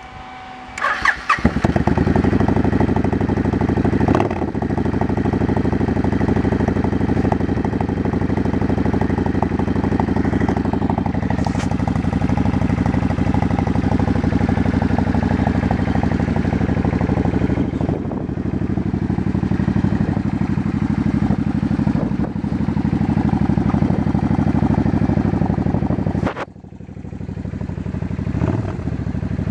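1995 Suzuki Intruder VS800's V-twin engine cranked over by the starter, catching about a second in, then running steadily.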